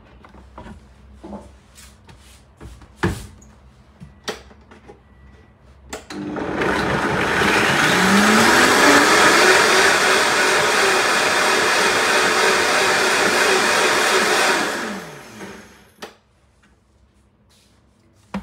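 Countertop blender grinding pistachios into a liquid dressing. A few knocks and clicks from handling the jar and lid come first; about six seconds in the motor spins up with a rising pitch, runs steadily for around eight seconds, then winds down with a falling pitch and stops.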